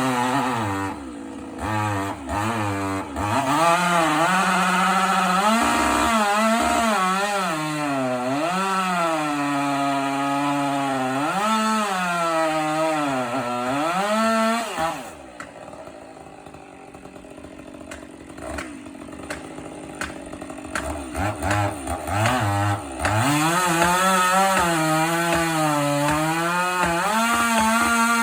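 Chainsaw cutting wood, its engine pitch dipping and rising as the chain bites and frees. About halfway through it drops back to a quieter idle with a few short revs, then returns to full-throttle cutting for the last few seconds.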